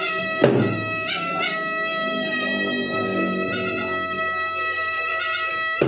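Makassarese gendang drum ensemble with a shrill double-reed pui-pui shawm playing long, held, reedy notes. Two loud drum strokes land, one about half a second in and one at the very end.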